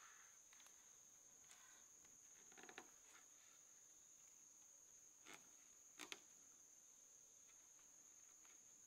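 Near silence: a faint, steady, high-pitched insect drone, with a few soft clicks or knocks about three, five and six seconds in.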